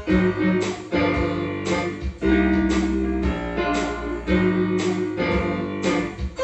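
Music with a steady beat: notes struck about every half second, with held notes under them.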